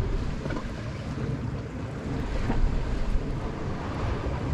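Wind buffeting the microphone with a steady low rumble, over the wash of the sea against shoreline rocks.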